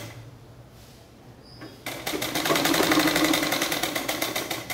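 Sewing machine stitching with a rapid, even needle rattle. It stops briefly at the start and runs again from about two seconds in.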